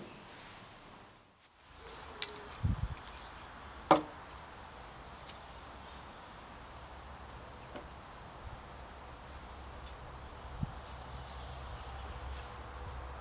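A few scattered knocks and clicks as a steel drawknife blade and a plastic drainpipe are handled and set against each other, the loudest a sharp click about four seconds in, over a low steady rumble.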